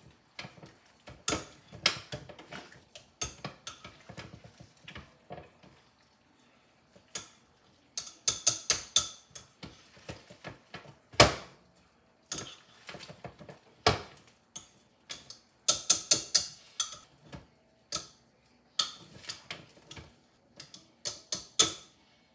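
Wire potato masher clicking and knocking against the crock pot's crock while mashing slow-cooked potatoes: irregular runs of sharp taps with a short pause near the middle, the loudest knock about eleven seconds in.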